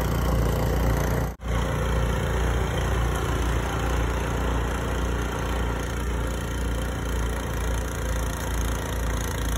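An engine running steadily with a low hum, dropping out for an instant about a second and a half in.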